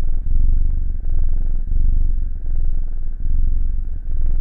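Tabby kitten purring, a steady low rumble that dips briefly with each breath, about once a second.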